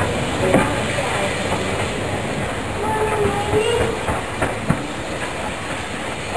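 Small steam saddle-tank locomotive running slowly along the track, with scattered clanks and clicks from its wheels over the rail joints.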